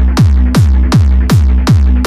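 Electronic dance music at about 160 beats per minute. A heavy kick drum lands on every beat, each hit sweeping down in pitch, over a steady deep bass.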